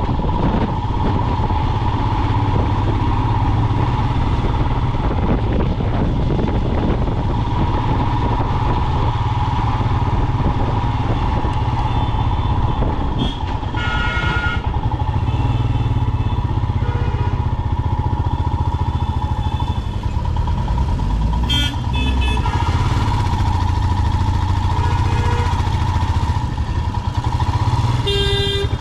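Motorcycle engine running steadily on the move, a continuous deep drone with a steady higher hum. A few short pitched tones sound over it about halfway through and again near the end.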